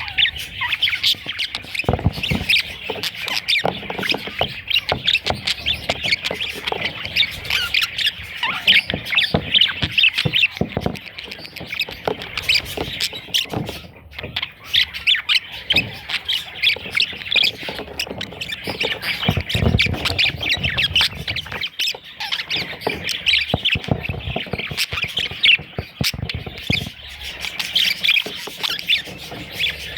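Budgerigar chicks chirping and squeaking without a break in a dense, raspy chatter, with scattered clicks and a few low knocks.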